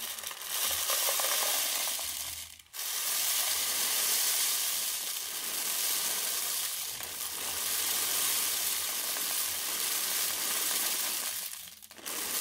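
Uncooked rice pouring from a plastic bag into a cardboard paper-towel-tube rain stick, a steady grainy patter of falling grains. It breaks off briefly about two and a half seconds in, then runs on and stops shortly before the end.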